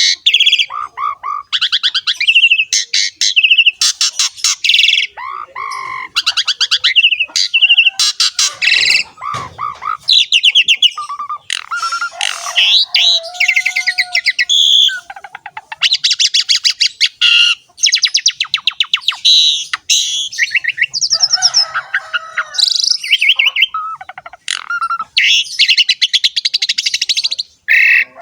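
Javan pied starling (jalak suren) in full song: a long run of rapid, harsh rattling trills broken by short pauses, mixed with whistled notes and squawks.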